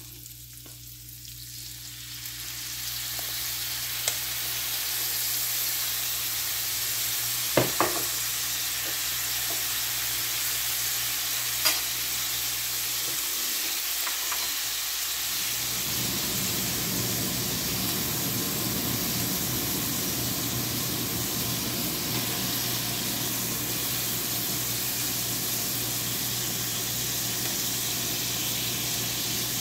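Skewered quail eggs sizzling on a hot iron tawa. The sizzle builds over the first few seconds as sweet soy sauce goes onto the hot pan, then holds steady. A few sharp clinks are heard along the way.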